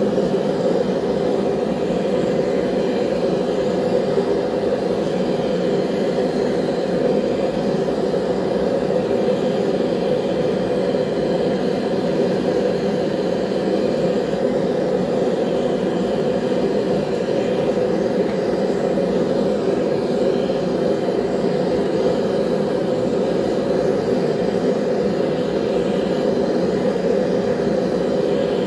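Forge burner running with a steady, even rush of flame and air, heating blades for annealing.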